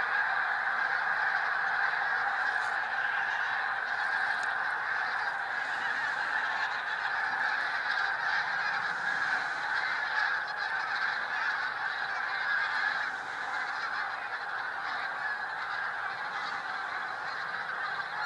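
Tens of thousands of geese honking all at once as they leave their overnight roost, a continuous dense chorus of calls that eases slightly about two-thirds of the way through.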